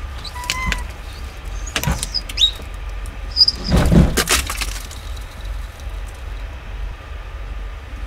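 Ice cracking and the roof panels of an Aliner A-frame camper creaking and knocking as the iced-over roof is forced up and breaks free, with the loudest cracks about four seconds in. A low steady hum runs underneath, heard from inside the truck cab.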